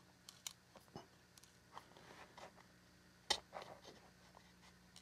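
Phillips screwdriver turning a small M4 screw into an aluminium post, giving faint gritty scraping and small clicks, with one sharper click about three seconds in. The grit is residue left in the threads from machining, which the maker calls normal.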